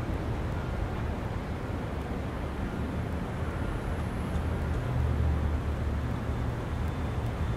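Steady outdoor background rumble and hiss, swelling slightly about five seconds in.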